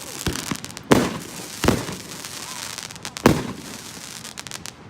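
Consumer fireworks going off: a run of sharp bangs, the loudest about a second in and past three seconds, with crackling between them.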